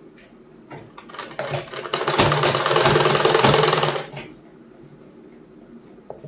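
Black domestic sewing machine stitching through cotton nighty fabric. It starts with a few slow stitches about a second in, runs fast and steady for about two seconds, then stops about four seconds in.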